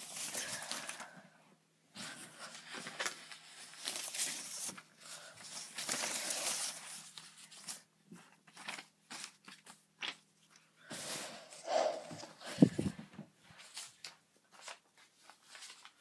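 Paper bills rustling and crinkling as handfuls of money are gathered and piled, in long stretches through the first half, then in short scattered crackles. A single loud thump about twelve and a half seconds in.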